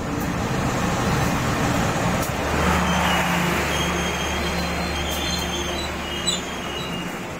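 A diesel locomotive and its passenger coaches running past close by on the adjacent track, the wheels and coaches rumbling steadily. A faint high wheel squeal joins from about halfway through, and there is one sharp clack near the end.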